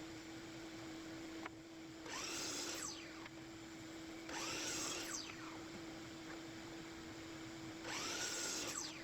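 Power drill running in three short bursts of about a second each, its pitch falling away as each run ends, over a steady hum; the drill is driving screws.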